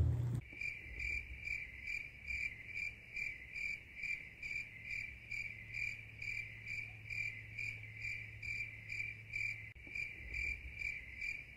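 A high-pitched chirp repeating very regularly, a little over two times a second, starting abruptly and running evenly throughout.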